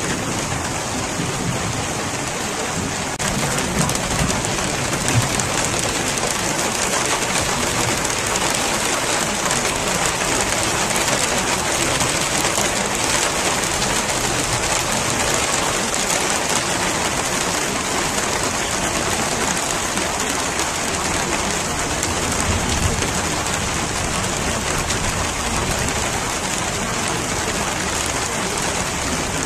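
Steady rain falling, a continuous hiss of drops, with a few low rumbles of thunder underneath.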